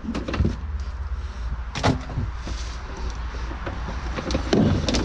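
Irregular knocks and clunks of objects being handled, with a sharp knock about two seconds in and a cluster near the end, over a steady low hum.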